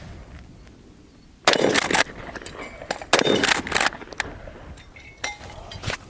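Remington 870 20-gauge pump-action shotgun firing two loud shots about a second and a half apart, with the sharper clacks of the pump action being worked between and after the shots.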